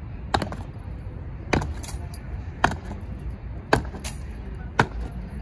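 Boot heels of goose-stepping honour guards striking granite paving in unison: a sharp crack about once a second, five times, over a steady low background rumble.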